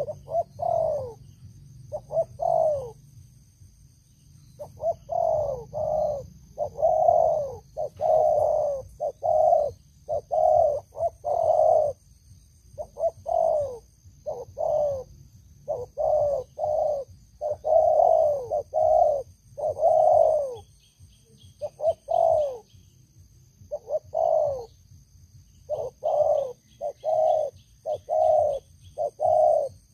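Spotted doves cooing: short phrases of several coos, each note sliding down in pitch, repeated with brief pauses between phrases.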